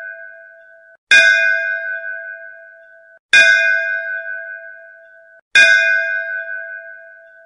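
A bell struck three times, about two seconds apart. Each stroke rings out and fades, and is cut off just before the next strike; the fading ring of an earlier stroke fills the first second.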